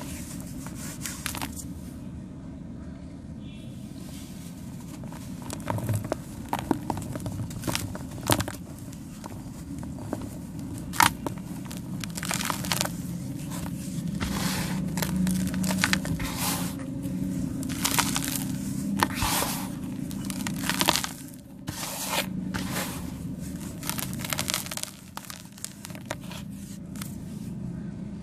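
Sand cement being crushed and crumbling, with many irregular sharp crunches and gritty crackling.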